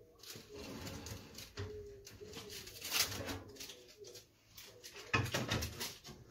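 Metal baking tray pulled out of a small electric countertop oven and set down on the stovetop, with scrapes and several sharp knocks, loudest about three seconds in and again in a cluster just after five seconds.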